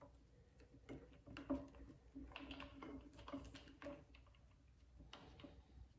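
Faint, scattered small clicks and taps as small screws are fitted into a plastic handlebar switch housing on a motorcycle bar.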